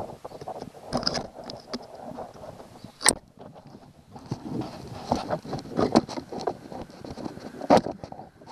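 A metal tool scraping and tapping corrosion off a car battery's terminal clamp: uneven scrapes with sharp metallic clicks, the loudest about three seconds in and near the end.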